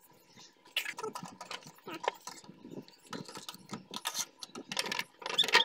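An idle speed control actuator being worked loose and pulled off a car's throttle body by hand: a run of irregular plastic and metal clicks and rattles.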